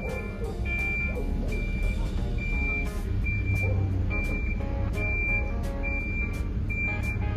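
Vehicle reversing alarm beeping steadily, one high beep about every 0.8 seconds, over a low engine hum.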